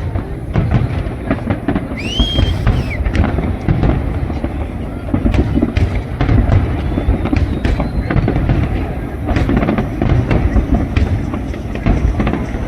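Fireworks going off in quick succession: a continuous run of sharp bangs and crackles over deep, rolling booms.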